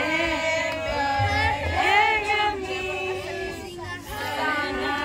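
A group of people singing together, several voices overlapping in long, wavering held notes.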